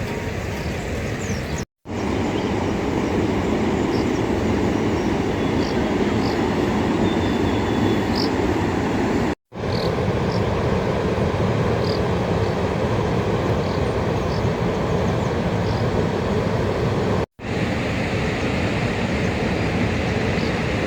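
Heavy rain falling, a steady dense hiss, with faint bird chirps above it. It breaks off for an instant three times, about 2, 9 and 17 seconds in.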